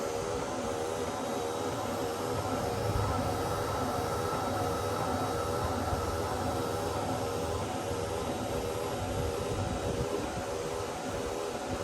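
A steady mechanical drone that holds the same level throughout, with no rhythm and no sharp events.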